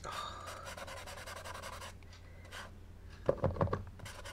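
Posca paint marker being primed, its nib pumped against paper: soft scratchy noise, then a quick run of short taps about three seconds in.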